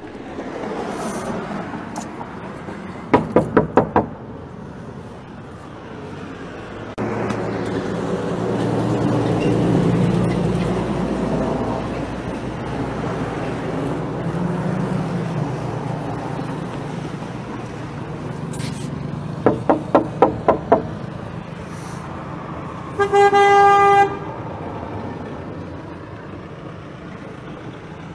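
Outdoor street noise with a car horn honking once for about a second near the end. Earlier, two quick runs of four or five sharp clicks.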